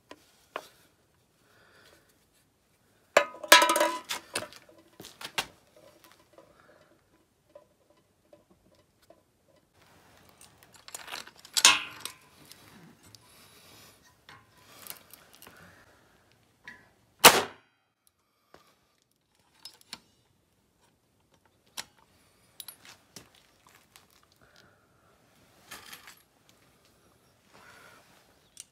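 Metal clicks and clinks from a small model artillery cannon being handled and loaded, with a few louder clanks and one sharp click.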